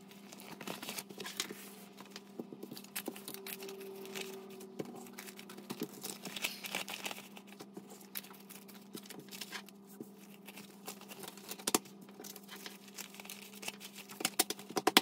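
Paper rustling and crinkling with many small irregular clicks and taps, as scratch-off shavings are cleared from a paper challenge sheet and paper cash is handled.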